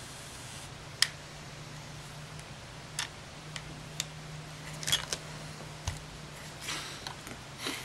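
Scattered sharp little clicks and ticks of small tools and plastic camera parts being handled, the loudest about a second in and a quick cluster around the middle, over a steady low hum.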